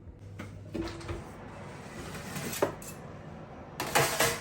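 Metal baking trays clinking and scraping as they are slid into an oven, with a few light knocks and then a louder metallic clatter near the end.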